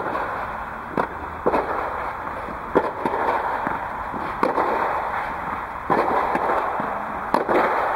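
Tennis balls struck by a racket and bouncing on an indoor clay court during forehand drills: sharp pops every second or so, each echoing in the hall, over a steady background noise.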